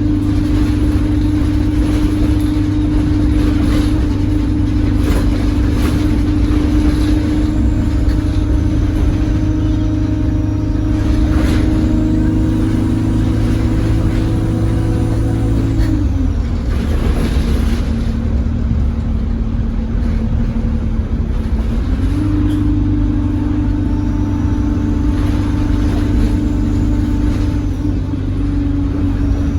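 ADL Enviro200 single-deck bus running with a steady droning tone over a low diesel rumble. The drone drops in pitch about halfway through, holds lower for several seconds, then climbs back up as the engine speed changes.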